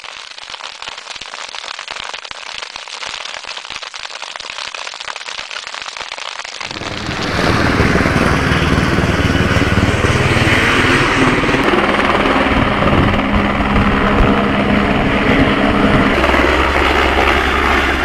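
Brush wildfire crackling and popping for the first six or seven seconds, then a louder firefighting helicopter carrying a water bucket, its steady rotor and engine noise running through the rest.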